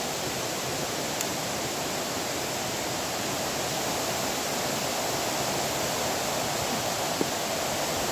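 Steady rush of a waterfall, an even wash of falling water without a break, with a single small tick about seven seconds in.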